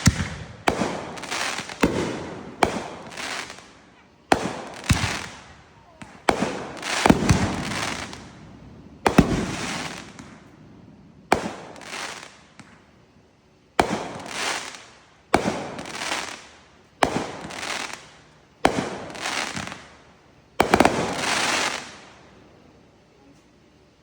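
Fireworks going off in a rapid string of sharp bangs, one every second or two, each followed by a fading tail; the string stops near the end.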